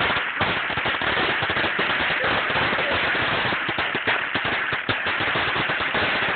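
A 20-foot belt of firecrackers going off: a rapid, unbroken string of sharp bangs at a steady loudness.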